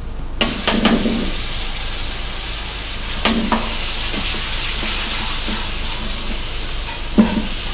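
Red sauce added to a wok of garlic, green chilli and onion frying in hot oil sets off a sizzle that starts suddenly about half a second in and then holds steady. A steel ladle knocks and scrapes against the wok several times as it stirs, making an early step of a garlic sauce.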